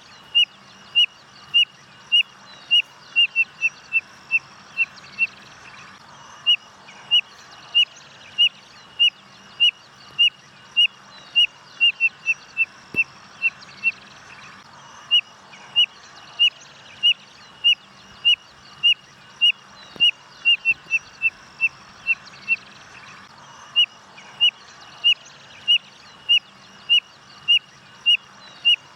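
Codorna-amarela (spotted nothura) singing: a long series of short, clear rising whistles about one and a half a second, each phrase speeding up into quick notes at its end before a short pause, four phrases in turn.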